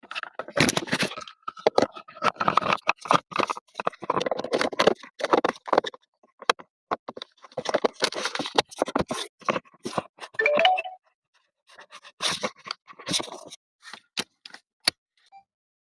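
Irregular metallic scraping and sharp clicks of small tools and lock parts worked by hand on a VW ignition lock, with short pauses between bursts and a brief squeak about ten seconds in.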